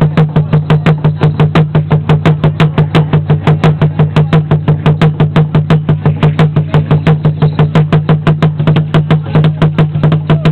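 Huehuetl, a tall upright Aztec wooden drum with a skin head, beaten with two sticks in a fast, even beat of about four to five strokes a second, over a steady low hum.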